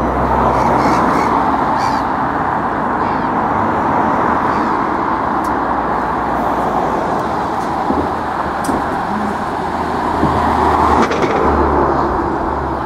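A Neoplan touring coach's diesel engine running close by: a steady, loud drone with a low hum underneath that swells slightly near the end.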